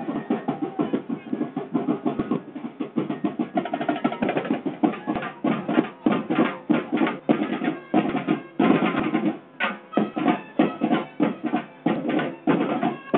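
Festival drum-and-percussion band playing a fast, dense beat for a street-dance routine.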